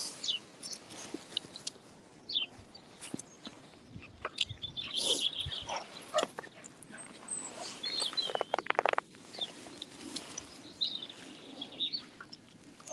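Songbirds chirping in short high phrases, with scattered clicks and rustles and a brief rapid rattling about eight seconds in.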